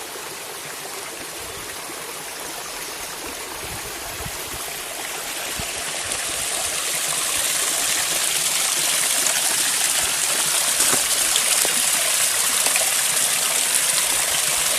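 Water pouring down a tiered garden waterfall, a steady rushing hiss that grows louder over the first half and then holds steady.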